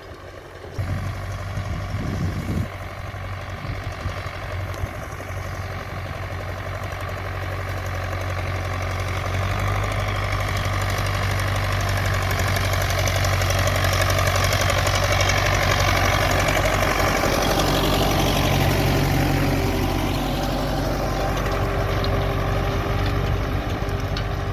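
Tractor diesel engine running steadily while pulling a cultivator through grass. It comes in about a second in and grows louder over the first half, then holds.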